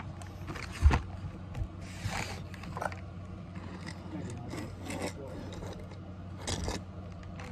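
A plastic toy garbage truck and a small plastic toy bin handled by hand: scattered rubbing and scraping of plastic and taped paper, with a sharp knock about a second in and another near the end.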